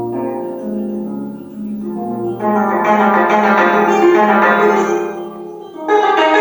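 25-string gayageum played solo: low notes ringing, then from about two and a half seconds in a loud, dense flurry of plucked notes across the instrument's range. The sound drops back briefly near the end before another loud passage begins.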